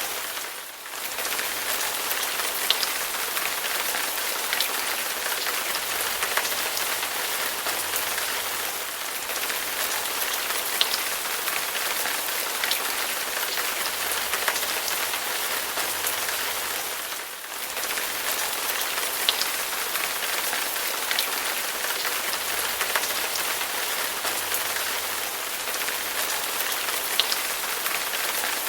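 Steady heavy rain: a dense hiss of falling rain with scattered sharper individual drops. The rain briefly dips in level twice, about a second in and about halfway through.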